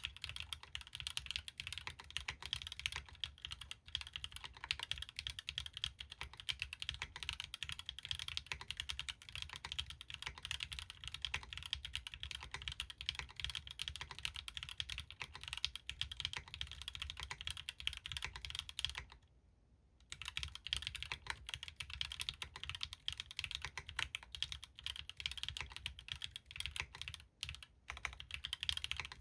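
Mechanical keyboard typing: a Bahm Droplet with stock Gateron L'Orange linear switches, a carbon fibre plate and Linworks Greige keycaps, typed on fast and continuously. The typing stops for about a second around two-thirds of the way through.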